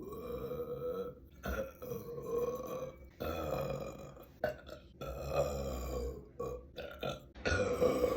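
A woman belching: a series of long, drawn-out belches, one after another with short breaks, and a couple of brief ones shortly before a last long belch near the end.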